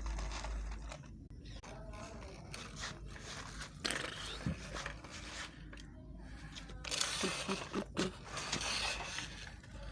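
Toy vehicles being pushed and handled: irregular scraping, rustling and clicks, with four short pitched squeaks in quick succession about seven to eight seconds in.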